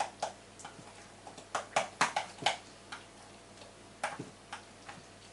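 A utensil clinking and tapping against a glass mixing bowl while a thick cottage-cheese batter is stirred, in irregular knocks that cluster about halfway through and again near the end.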